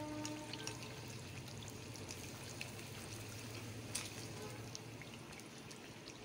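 Malpua batter deep-frying in refined oil in a kadhai on a low gas flame: a steady soft sizzle with scattered small pops and crackles.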